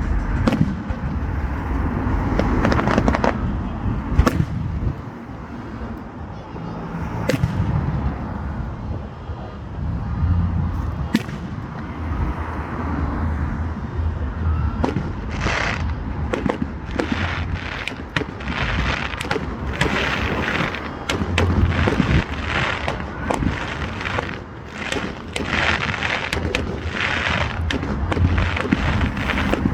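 Fireworks going off: scattered bangs and booms, then from about halfway a fast, dense run of crackling bursts.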